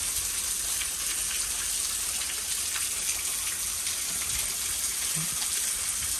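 Heavy rain falling steadily, an even hiss of downpour with no letup.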